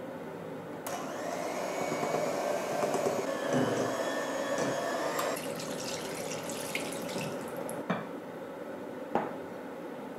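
Electric hand mixer running, its beaters working flour and milk into chocolate cake batter in a glass bowl. It gets louder about a second in, while milk is poured in, and there are two sharp knocks near the end.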